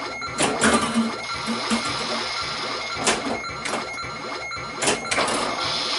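Bally Flash Gordon pinball machine in play: sharp mechanical clacks from the playfield's solenoids and ball, in pairs about half a second in, around three seconds in and near five seconds, over a steady high electronic tone from the machine.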